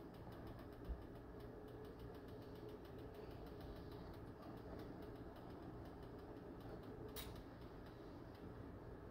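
Faint, fast crackling sizzle of butter and beaten eggs cooking in a nonstick frying pan. A low thump comes about a second in, and a sharp click about seven seconds in.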